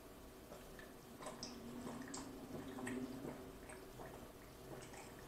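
A person drinking from a glass mug in long gulps: faint swallowing and liquid sounds, with a few distinct gulps between about one and three seconds in.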